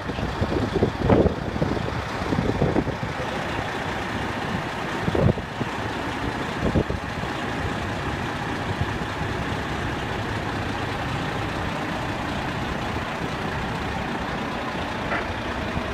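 Fire engine running steadily while pumping water from a hydrant, an even engine drone. A few short louder knocks come in the first seven seconds.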